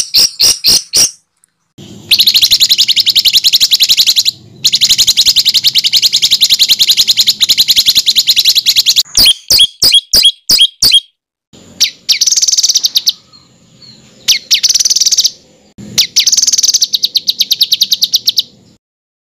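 Songbird song of the harsh, rapid 'tembakan kasar' kind used as a masteran recording to tutor competition birds. A run of quick sharp notes gives way to two long, very fast trills of several seconds each, then a string of separate down-slurred notes and three shorter buzzy trills.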